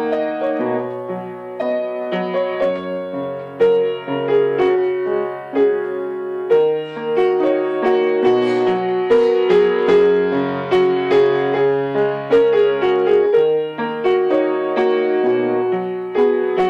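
Background piano music: a melody of struck notes over lower held bass notes.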